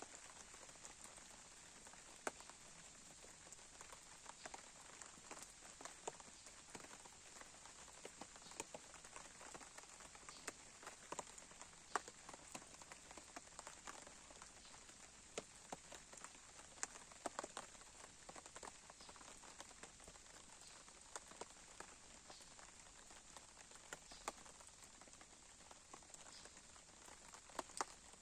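Campfire crackling faintly: irregular sharp pops and snaps over a steady hiss.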